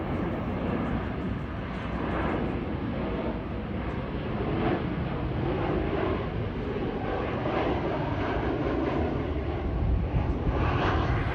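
Jet engine noise of a Qantas Boeing 737 airliner flying low overhead on approach with its landing gear down: a steady, continuous rush that is loudest near the end.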